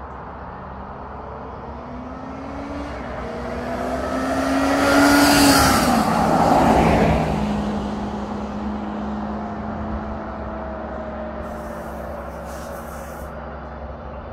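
2011 Yamaha XJ6S Diversion motorcycle riding past, its 600 cc inline-four engine getting louder and climbing in pitch as it approaches. The pitch drops as it passes about five to six seconds in, then the engine fades as the bike rides away.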